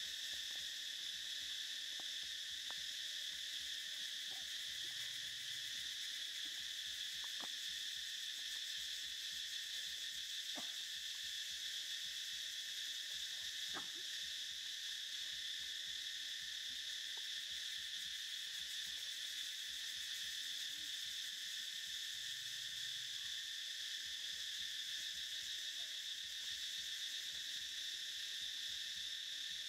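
Steady, shrill chorus of insects droning without a break, with a few faint clicks.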